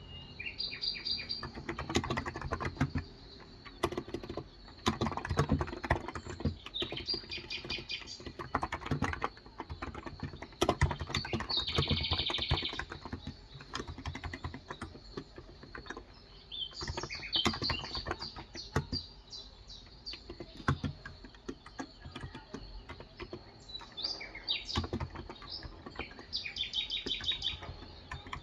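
Typing in bursts of rapid keystrokes on a Cox Endeavour electro-capacitive (non-contact) tenkeyless keyboard with 35 g switches, with birds chirping several times between and over the keystrokes.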